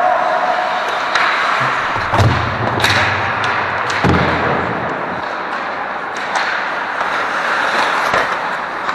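Ice hockey game sounds in a rink: a steady scraping hiss of play, broken by several sharp clacks and thuds of pucks, sticks and boards, about five in all.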